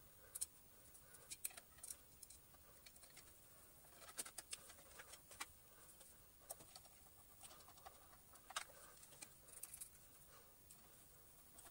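Faint, scattered clicks and light taps of a screwdriver and plastic parts as the screws go back into the plastic gearbox casing of a Gtech AirRam vacuum; otherwise near silence.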